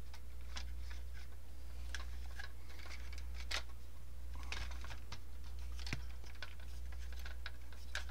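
Irregular light clicks and taps of hard plastic parts on a 1978 Kenner X-wing fighter toy as they are handled and fitted together, over a steady low hum.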